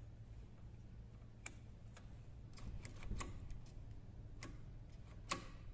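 Scattered light clicks and ticks as the replacement carburetor and the auger's throttle are handled while the throttle cable is hooked up, over a faint low hum. The clicks come irregularly, bunched together about halfway through, with a sharper click near the end.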